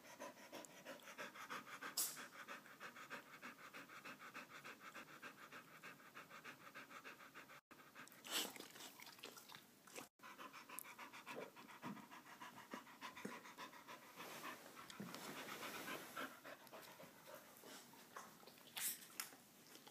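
A dog panting quickly and evenly, clearest in the first half, with a few brief sharp rustles or knocks, the loudest about two seconds in.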